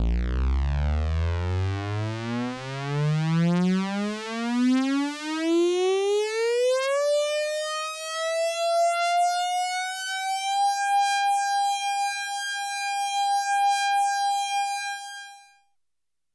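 Military alarm siren winding up: a single tone climbs steadily in pitch from a low growl for about ten seconds, then holds one high steady note before stopping near the end.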